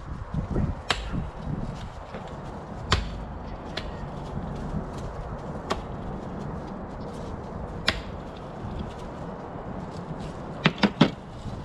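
An axe chopping wild hog bones directly on a wooden log. Single sharp blows come every one to two seconds, then three quick strikes near the end.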